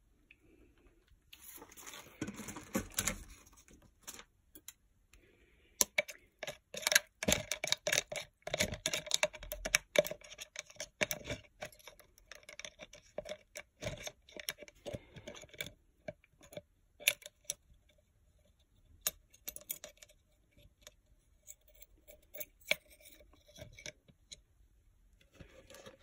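Irregular small metallic clicks, taps and clinks as a small titanium lockpick and a stainless steel wire hook are handled over a plastic tub. The clicks grow dense from about six seconds in.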